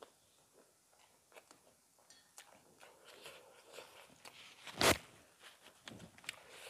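Two people eating rice and chicken curry with their fingers from steel plates: quiet chewing, small clicks and fingers working through the rice. About five seconds in there is one short, louder noisy sound.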